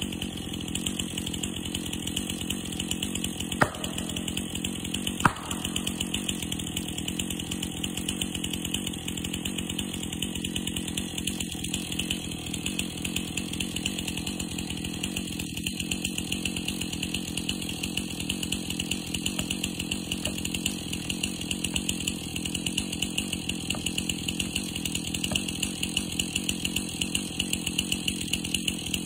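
Chainsaw engine idling steadily, with two sharp knocks a few seconds in.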